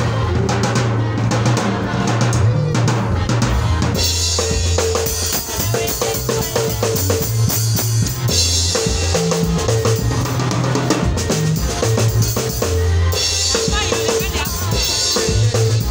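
Live band playing, led by a drum kit: a steady groove on bass drum, snare and rimshots, over electric bass guitar and keyboard. The cymbals get much louder about four seconds in.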